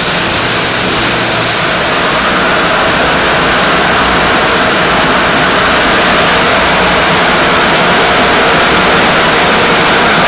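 Automatic car wash tunnel spraying water over a car: a loud, steady rush of spray and wash equipment that grows slightly louder.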